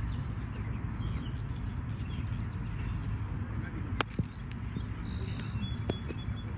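A single sharp crack about four seconds in, a baseball bat hitting a ball to the infielder, followed at once by a lighter knock and another knock near the end, over a steady low rumble.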